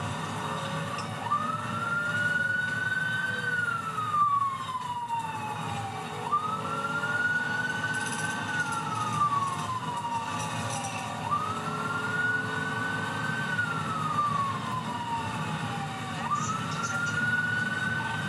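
Police car siren on its slow wail, heard from inside the patrol car: four cycles, each rising quickly then falling slowly over about five seconds. A steady rumble of engine and road noise runs beneath it.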